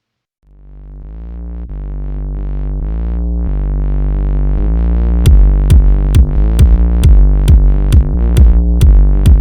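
Electronic music: a synthesizer chord fades in about half a second in and swells, and a steady drum-machine beat of about two hits a second joins about five seconds in.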